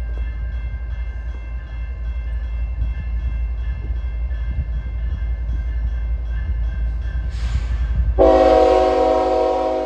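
CN diesel locomotive approaching with a steady low rumble. About eight seconds in, a short hiss of air comes just before its horn sounds a loud, long blast.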